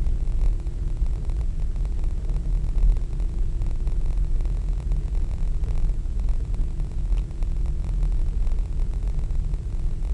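Steady low rumble of a moving car's road and engine noise, heard from inside the vehicle, with a faint steady hum above it.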